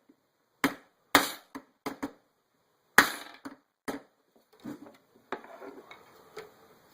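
Hammer knocking the shaft out of a DYS 2206 brushless motor bell set on a 5/16 socket: about eight sharp metal knocks at uneven intervals, some ringing briefly. They give way to a softer scraping near the end.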